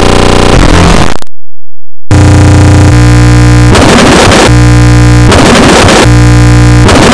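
Loud, clipped, digitally distorted audio of the kind used in cartoon 'effects' edits: a harsh buzzing drone that cuts out completely for about a second near the start. It comes back as a stepped buzzing tone that keeps switching with stretches of harsh hiss.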